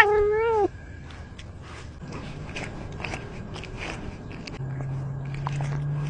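A domestic cat meows once, close to the microphone, the call falling in pitch as it ends. Then soft scattered rustling of grass and fur brushing the cat-worn camera follows, with a low steady hum coming in about halfway through.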